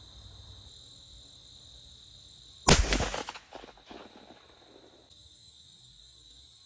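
A single shot from a CVA Optima .50 caliber muzzleloader, a sharp loud report about two and a half seconds in that trails off over about a second. Crickets chirr steadily underneath.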